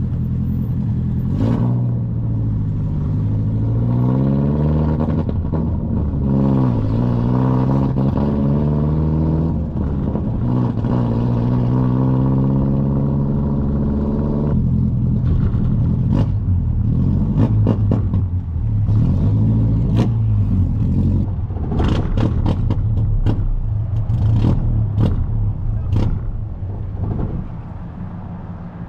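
Vehicle engine running and revving as it pulls away. Its pitch rises and falls several times in the first half and then settles steadier, with sharp clicks and knocks in the second half.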